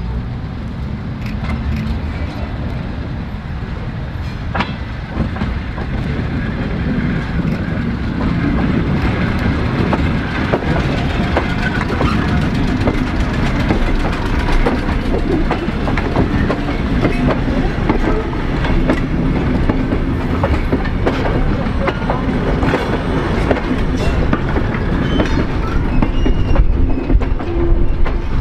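Vintage Tait wooden-bodied electric suburban train rolling slowly past at close range, its steel wheels clicking over rail joints over a steady rumble. The sound grows gradually louder as the carriages go by.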